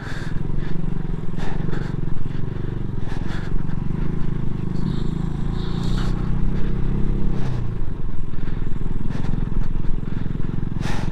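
Motorcycle engine running under way on a rough, broken road, with scattered knocks and rattles from the bumps. The engine note sags a little about two-thirds of the way through as the rider eases off.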